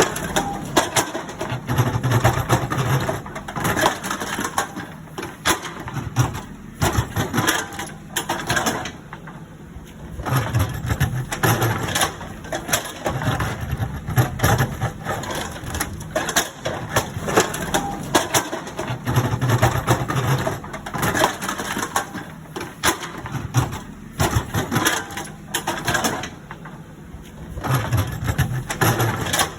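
Excavator at work: its diesel engine labouring while the bucket scrapes and crunches through soil and stones, in loud digging stretches broken by quieter moments every eight or nine seconds.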